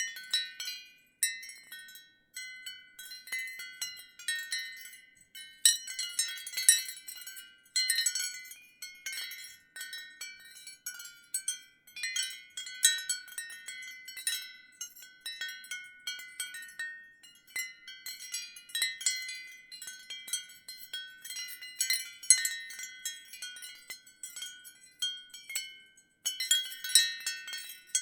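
Ceramic wind chimes clinking irregularly, a busy run of overlapping high, short-ringing tones with a brief lull near the end.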